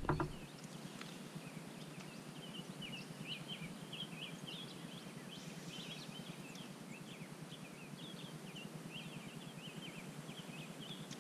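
Small birds chirping in quick short notes again and again over a steady outdoor hiss.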